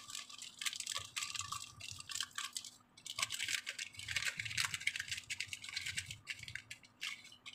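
Plastic drink-mix sachets crinkling and rustling in the hands, with many small clicks and taps, as the cut-open Rasna packets are handled and emptied; it eases off briefly about three seconds in.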